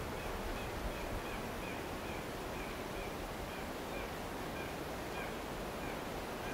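A bird calling in a long, even series of short high chirps, about three a second, over a steady outdoor background hiss.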